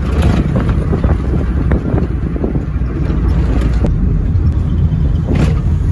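Steady engine and road rumble heard from inside a moving car.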